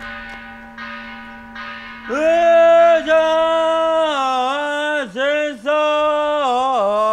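A bell rings and fades, then about two seconds in a single man's voice begins a Buddhist monk's chant in long held notes that dip and bend in pitch.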